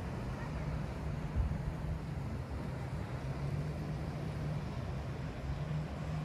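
Steady low engine drone under a soft, even rush of wind and sea.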